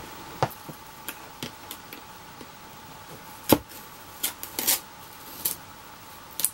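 Fingernails clicking and scraping on the plastic back of a digital photo frame while peeling back a sticker seal to expose hidden screws. Scattered sharp clicks, the loudest about three and a half seconds in, with a cluster near the end.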